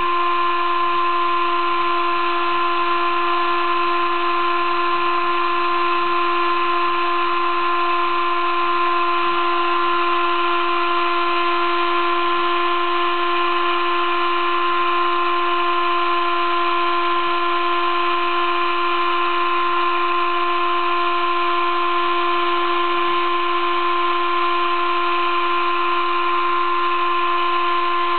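Sable-2015 desktop CNC mill engraving letters into acrylic board with a 20-degree V engraving cutter: the machine's motors whine steadily in several held tones over a continuous cutting hiss.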